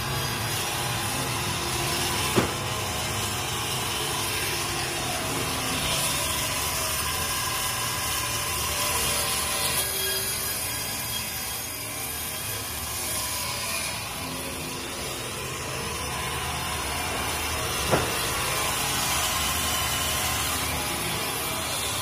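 Log band sawmill running, its saw head cutting steadily along a log as it travels down its track, with two sharp knocks, one early and one near the end.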